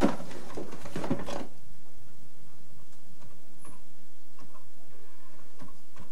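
Telephone handling and dialling: rustling and knocks as the handset of a corded desk phone is taken up in the first second or so, then a few light, scattered clicks, over a steady hiss and hum.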